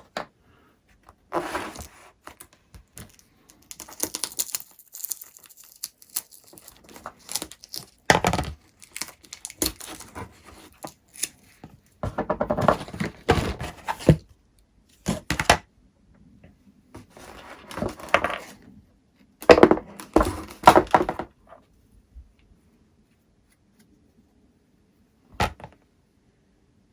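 Masking tape being pulled off the roll and torn into strips, in irregular bursts with quiet pauses between, along with handling knocks.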